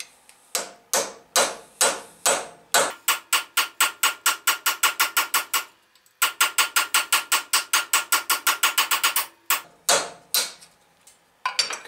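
Hammer blows on a quarter-inch cape chisel cutting a keyway into a half-inch mild steel bar held in a vise, each blow ringing. A few spaced strikes, then two quick runs of light blows at about five a second with a brief pause between them, ending with a few slower strikes. These are light first-pass cuts, made while the chisel's corners have not yet bitten into the steel.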